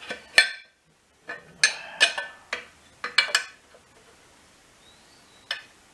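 Metal hand tools clinking and tapping on metal: a run of irregular sharp clinks with a brief ring. After a pause, one more clink comes near the end.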